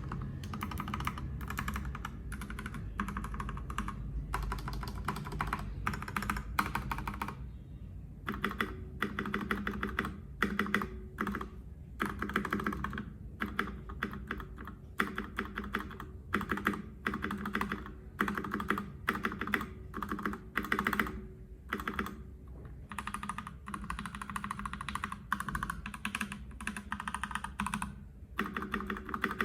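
Typing on a HelloGanss HS87T tenkeyless mechanical keyboard with linear Gateron Yellow Pro switches and PBT double-shot keycaps: quick runs of keystrokes with short pauses.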